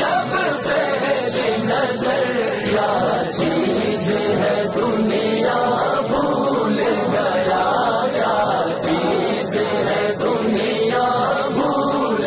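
Male voices chanting in a layered choir-like chorus, a devotional naat sung a cappella.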